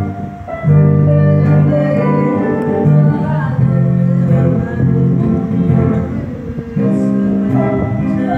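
Casio electronic keyboard playing a melody note by note over held low chords. The chords change every few seconds and break off briefly twice.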